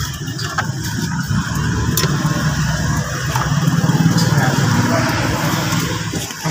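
Plastic centre dash bezel of a 1996 Nissan Sentra being pried loose with a screwdriver: a few sharp clicks as its clips let go, over a low steady rumble.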